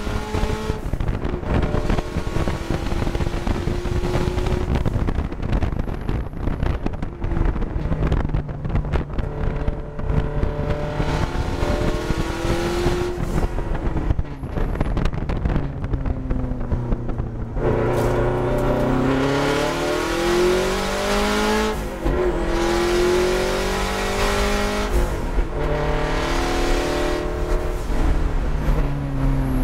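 Subaru STI's turbocharged flat-four engine driven hard on track, heard from inside the car, its note climbing and falling again and again as the car speeds up and slows for corners, over steady road noise.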